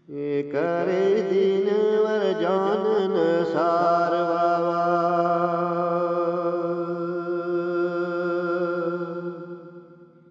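A man singing a Gojri bait in a chant-like style: he enters sharply with an ornamented, wavering melodic line for the first few seconds, then holds one long note that fades out near the end.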